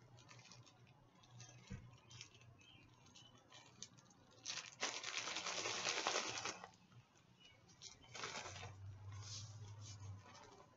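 Plastic zip-top bag of vinegar, cornstarch and baking soda being handled: light crinkles and clicks as it is sealed, then a loud rustling, sloshing burst of about two seconds as the bag is shaken, and a shorter rustle a little later.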